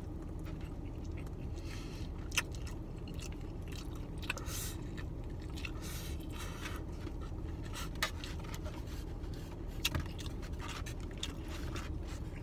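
A fork scraping and clicking against a styrofoam takeout container while someone chews food, with a few sharp clicks, over a low steady hum.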